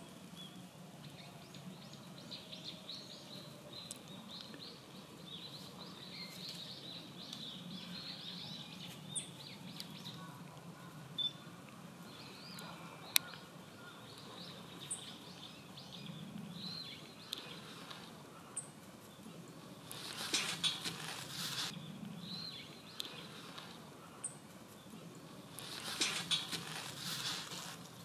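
Japanese white-eyes giving thin, high contact calls: many short chirps scattered throughout. There is a single sharp click a little before the middle, and two brief louder noisy bursts in the second half.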